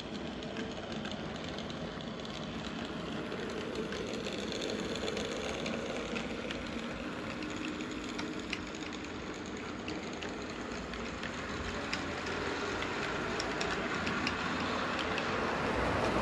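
Model train running along the track: a steady rolling rumble with scattered light clicks, getting louder toward the end.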